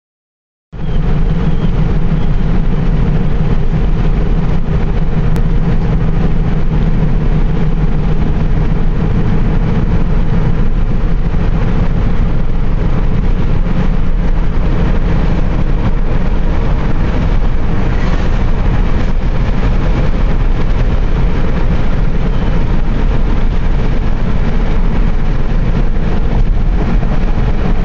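Steady road noise of a car cruising at highway speed, heard inside the cabin: a constant low rumble of tyres and engine that starts abruptly just under a second in.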